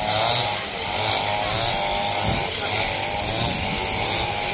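Two-stroke backpack brush cutters running at high revs while cutting grass, a steady engine whine whose pitch wavers as the cutters load and unload.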